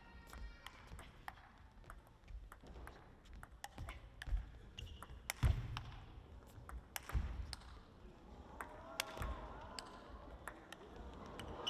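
Table tennis rally: a celluloid-type plastic ball clicking off bats and the table in quick, irregular taps, with a few louder knocks, echoing in a large sports hall.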